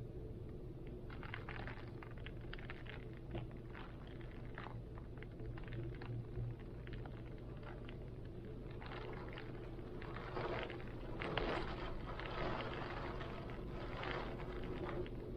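Heavy rain and wind: a steady low rumble with scattered drips and spatters, swelling in louder gusts in the second half.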